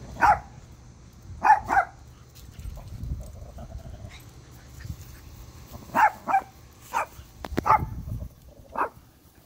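Small dogs play-fighting and barking: about eight short, sharp barks, three in the first two seconds and a quick run of them from about six seconds in.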